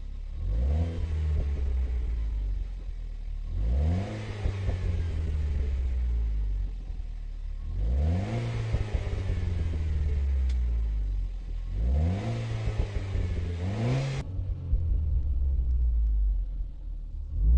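Renault Clio RS 200 EDC's 1.6-litre turbocharged four-cylinder on its stock exhaust, resonator still fitted, blipped four times while standing, each rev climbing quickly and falling back to idle. About three-quarters through it settles to a steady low idle, heard from inside the cabin.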